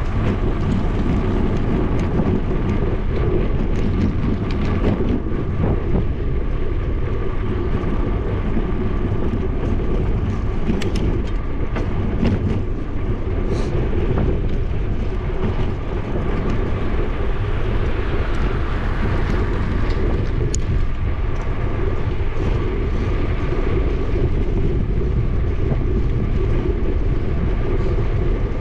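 Wind rushing over an action camera's microphone during a downhill bicycle ride, mixed with tyre noise on asphalt. A faint steady whine runs underneath, with scattered small clicks and rattles.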